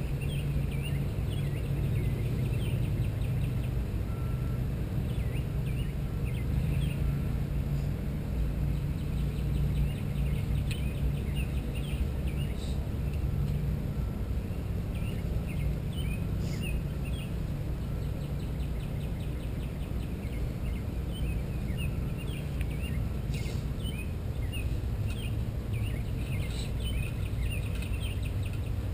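Outdoor ambience of many small birds chirping and singing in short repeated calls, over a steady low rumble.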